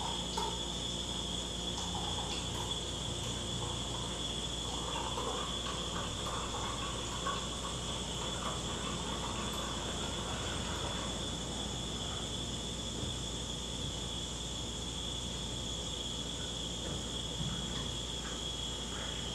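Beer trickling from a draft keg faucet into a glass in a thin, slow stream, the keg's CO2 pressure running low. A steady high-pitched whine sits under it throughout.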